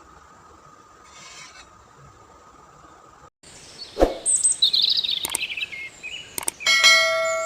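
A faint steady hum, then after a brief dropout a run of sharp clicks and quick chirping sweeps, ending in a loud ringing chime of several steady tones that slowly fades.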